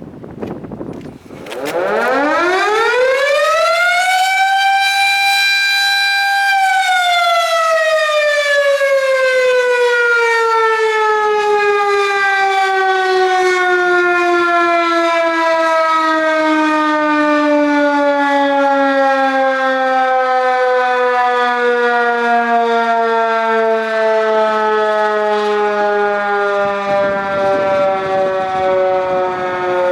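Three-phase Erick electromechanical fire siren giving a five-second alert test. It winds up steeply from about a second in, holds a steady high wail for a few seconds, then winds down in a long, slowly falling tone that is still sounding at the end.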